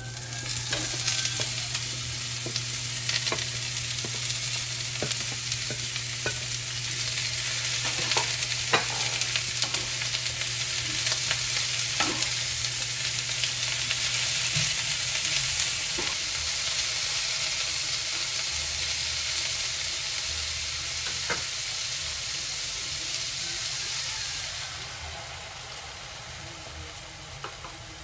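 Food sizzling and frying in a pan, with scattered sharp taps of a utensil against the pan as it is stirred. The sizzle drops away a few seconds before the end.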